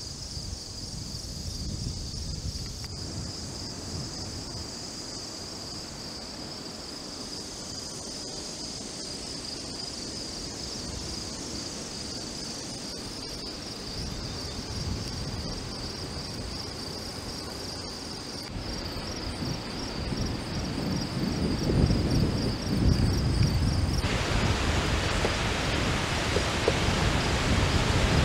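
A steady, pulsing chorus of crickets, joined partway through by growing wind gusts buffeting the microphone. About three-quarters of the way in the insects cut out abruptly and the loud rushing wind of a severe thunderstorm squall line takes over, rising in strength.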